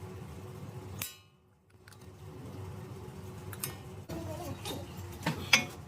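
Light metallic clinks and knocks of metal tools and parts being handled, a few scattered strikes with the loudest clank just before the end, over a steady low hum.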